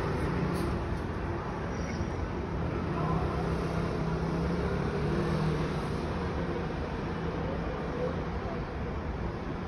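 City road traffic: a steady rumble of road noise with a low engine drone running through it.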